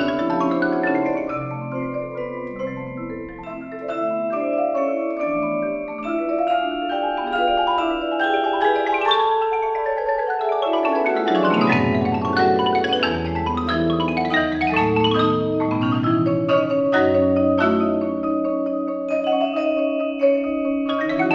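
Marimba ensemble playing fast, dense mallet passages on several marimbas. The low bass notes drop out for a few seconds mid-way, then come back in with a run down into the bass about eleven seconds in.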